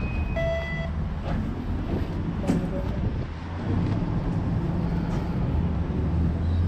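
TTC Flexity Outlook streetcar standing with its doors open: a short electronic chime about half a second in, then a steady low hum of the car's equipment heard from inside the car, with a few light knocks.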